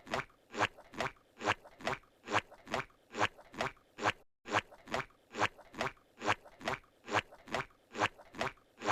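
Squidward's cartoon walking sound effect from SpongeBob SquarePants: his footsteps, looped at an even pace of a little over two steps a second. There is a short dropout about four seconds in, where the loop restarts.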